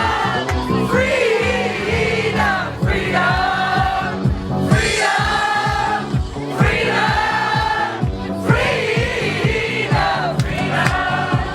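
House music played over a DJ's sound system: a steady kick drum under a chorus of voices singing.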